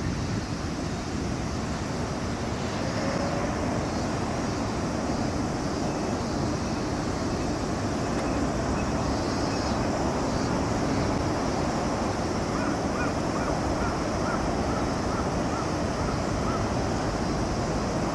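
Steady outdoor noise of wind and distant traffic, with a quick run of about eight short, evenly spaced calls a little past the middle.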